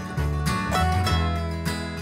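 Background music with plucked string instruments, guitar-like, playing a lively melody with some sliding notes.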